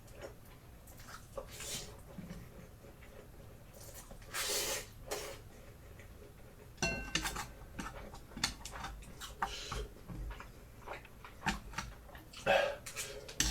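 A person eating very spicy noodles: heavy breaths and slurping mouth sounds, then from about seven seconds in, a run of small clicks from chopsticks or a fork against the dish, mixed with chewing.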